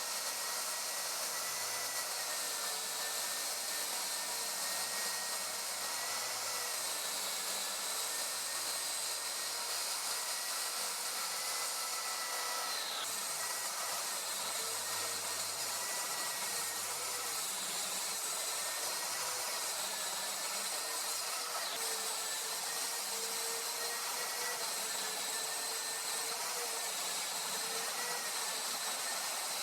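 Track saw running through plywood sheets, a steady high motor whine whose pitch dips slightly now and then.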